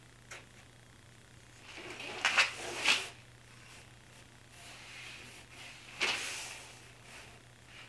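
A thin wooden strip scraping and sliding across pine boards as it is bent into a curve, in short scrapes about two to three seconds in and again near six seconds, over a faint steady hum.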